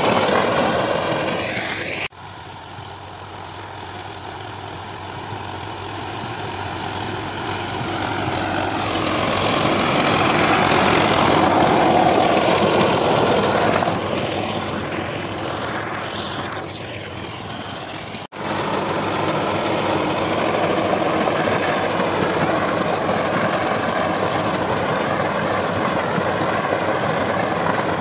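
Sonalika DI-750 III tractor's diesel engine running steadily under load as it pulls a working rotavator through dry soil. It swells louder as the tractor passes close, then fades. The sound breaks off abruptly twice, about two seconds in and again around eighteen seconds, where the footage is cut.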